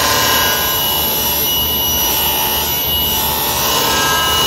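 Powermatic table saw running, its blade cutting through a sheet of MDF: a steady, loud rush with a thin high whine.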